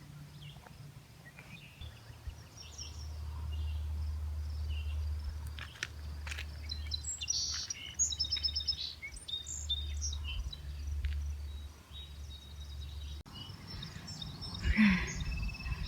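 Birds chirping and calling over a low steady rumble, with the densest run of quick chirps about halfway through.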